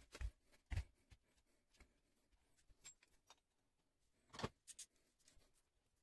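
A few light clicks and knocks of metal parts and tools being handled: an electric scooter wheel and its brake disc being set in place, with a ratchet wrench picked up. The loudest knock comes about four and a half seconds in.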